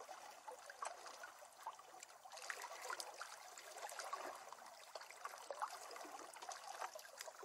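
Faint water lapping at a lakeshore: a steady patter of small splashes and trickles.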